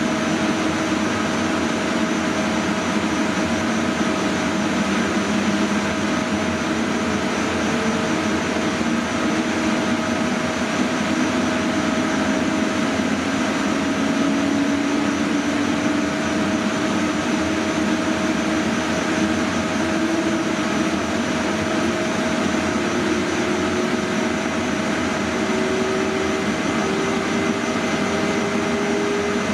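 The traction equipment of a Deutsche Bahn class 401 (ICE 1) power car, heard inside its machine room as the train starts off and accelerates. The GTO converter's whine climbs slowly in pitch, stepping up like a scale, over the steady noise of the cooling blowers and a steady higher hum.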